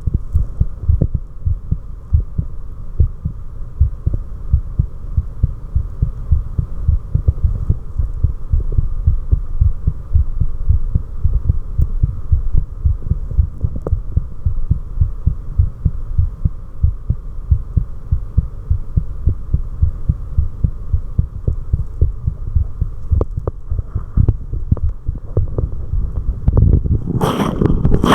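Human heartbeat recorded close up: a regular run of low thumps over a steady faint hum. A loud noisy burst breaks in about a second before the end.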